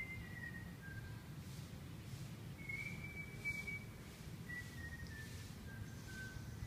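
A series of short whistled notes, each gliding slightly down and the run stepping lower in pitch, heard twice: once at the start and again from about two and a half seconds in. A steady low rumble lies underneath.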